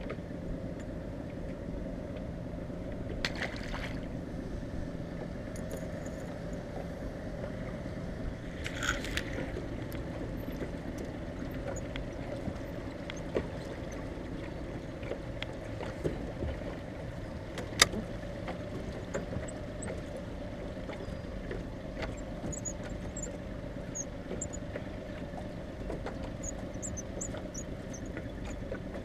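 Honda outboard motor running steadily at low trolling speed on a small aluminium boat. A sharp click comes about two-thirds of the way through, and faint high squeaks near the end come from a fishing reel that needs oiling.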